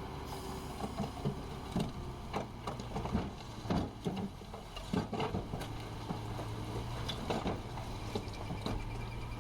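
Heavy construction machine's engine running steadily under irregular knocks and clatter, the sound of gravel and rock being pushed and tumbling.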